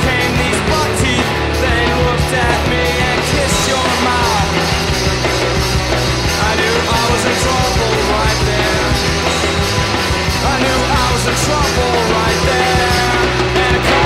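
Loud, dense math rock from a full rock band, guitars, bass and drums, playing without a break.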